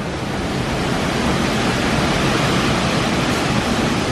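Strong tropical-storm wind rushing through the trees, a steady loud noise with a deep flickering rumble underneath, rising a little about half a second in.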